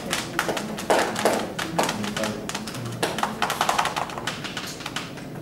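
A run of irregular sharp taps and knocks, several a second.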